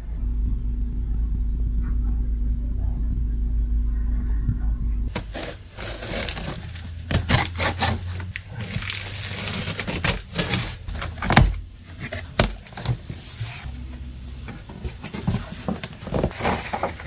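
Packaging being handled and opened: a run of irregular crackling, rustling and sharp knocks that starts about five seconds in. Before that there is a steady low rumble with a faint hum.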